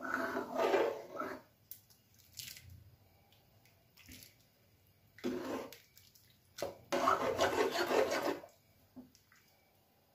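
A ladle stirring thick dal makhani in a metal kadhai: wet, squelching stir strokes that come in a few irregular bursts, with light clinks of the ladle against the pan between them.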